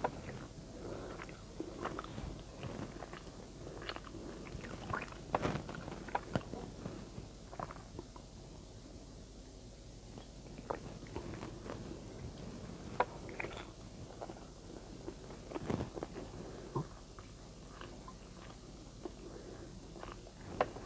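Close-up eating sounds: a person chewing and smacking on rice and spicy adobo eaten by hand, with many short, irregular mouth clicks.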